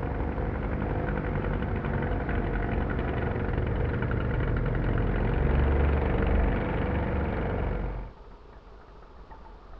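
Zenoah ZG two-stroke petrol engines of a large scale model Ford Trimotor running steadily in flight overhead. The sound drops suddenly to a much fainter level near the end.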